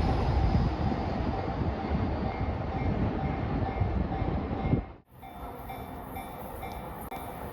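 A train passing over a railway level crossing with a loud rumble, while the crossing's warning bell rings in short repeated strokes. About five seconds in, the sound drops out abruptly and comes back quieter, with the bell still ringing.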